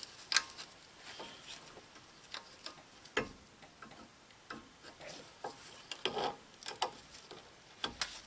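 Scattered light metallic clicks and taps of a brake pad with a wear indicator being seated into the front caliper bracket's pad clips, with a few sharper clicks about half a second in, about three seconds in, and a cluster near the end.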